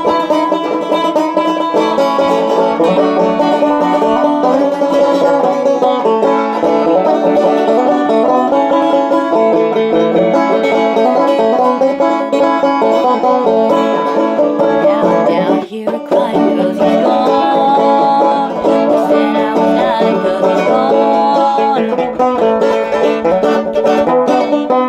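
Banjo picking a bluegrass tune as an instrumental passage with no singing, with a brief break in the playing about 16 seconds in.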